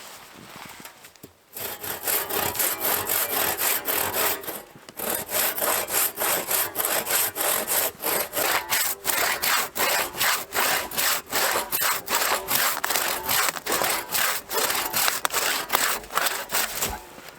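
Hand saw cutting through wood in steady back-and-forth rasping strokes, about two to three a second, starting a second and a half in, with a short pause partway through.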